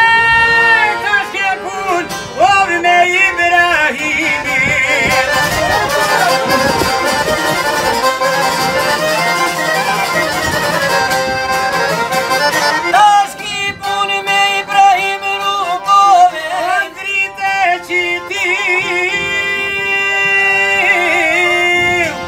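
Albanian folk music played live on violin, accordion and a long-necked çifteli lute, the violin carrying a wavering melody over the accordion.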